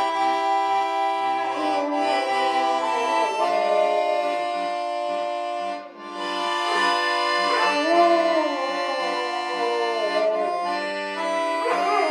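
Piano accordion playing a tune in sustained chords, breaking off briefly about six seconds in. A black Labrador howls along in sliding pitches over it a few times, most strongly about eight seconds in.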